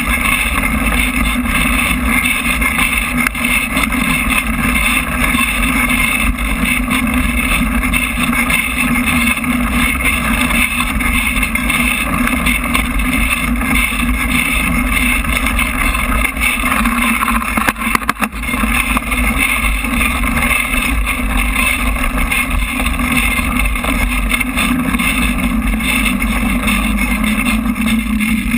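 Engine of the vehicle carrying the camera, running steadily along an off-road track, with a short dip about two-thirds of the way through and its note dropping slightly near the end.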